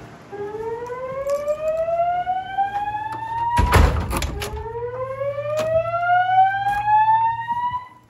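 Fire alarm slow-whoop evacuation tone from ceiling-mounted Wheelock speaker strobes, driven by a Notifier voice-evacuation panel. It sounds twice, each a rising whoop lasting about three and a half seconds. A loud bang comes just before the halfway point, between the two whoops.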